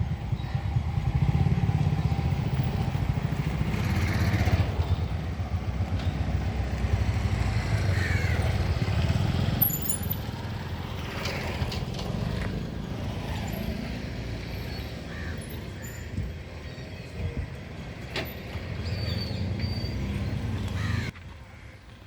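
Vehicles running and passing with a steady low engine rumble, loudest over the first ten seconds and then easing; the sound cuts off abruptly about a second before the end.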